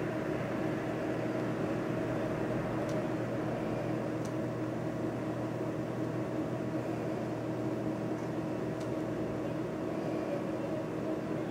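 Steady background hum with two constant low tones, unchanging throughout, with a few faint ticks.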